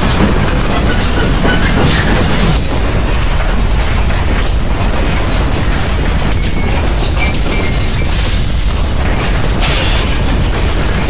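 A building and its contents shaking in a strong earthquake: a continuous loud rumble with rattling and scattered sharp knocks of loose objects.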